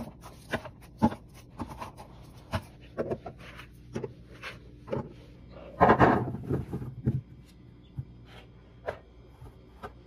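Juice pouches set one at a time into a clear plastic organizer bin, a string of light taps and knocks. About six seconds in, fresh strawberries are poured from a bowl into a clear plastic bin, a quick cluster of thuds against the plastic.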